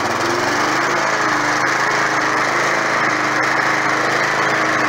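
Gas-powered walk-behind push mower's small engine running steadily, freshly started on the first pull of the recoil cord after sitting all season.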